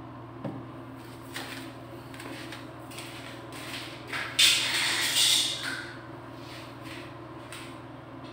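Flip-flop footsteps on a tiled floor, then a loud scraping clatter about four seconds in as metal faucets and tools are picked up off the tiles. A steady low hum runs underneath.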